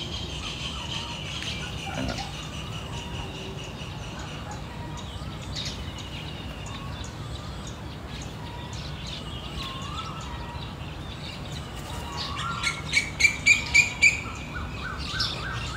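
Birds chirping and calling over a steady outdoor background, with a loud run of about six sharp repeated calls near the end.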